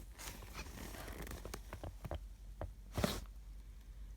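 A canvas handbag being handled and turned over: soft rustling and light clicks, with one louder knock about three seconds in.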